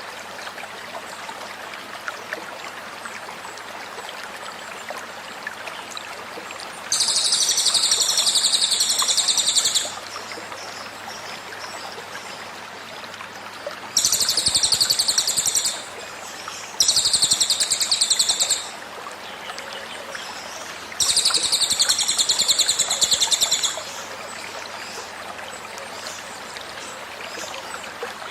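Cililin song in loud, high, rapid trilled 'tembakan' bursts: four of them, each two to three seconds long, over a steady background of running stream water.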